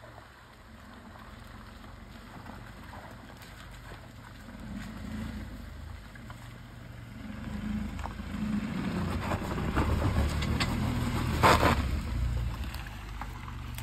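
Tata Nexon SUV crawling over a rough, stony dirt track: engine running low and getting louder as it comes closer, with tyres crunching on gravel and one sharp knock near the end.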